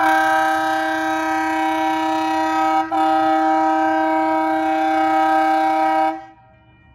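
Train horn sounding a chord of several notes at a road grade crossing as the passenger train rolls through: one long blast, a brief break about three seconds in, then another long blast that cuts off about six seconds in, leaving the low rumble of the passing cars.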